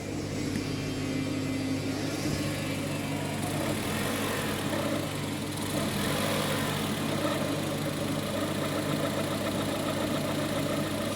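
Maruti Suzuki Eeco CNG van's engine idling, its idle speed rising and dipping unevenly instead of holding steady: the RPM fluctuation that the mechanic puts down to a dirty electronic throttle body.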